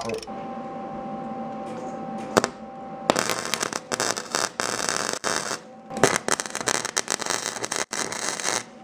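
Arc welding a steel exhaust pipe extension with a wire-feed welder: a steady hum, then from about three seconds in the dense, spitting crackle of the arc, broken off once briefly near six seconds and struck again.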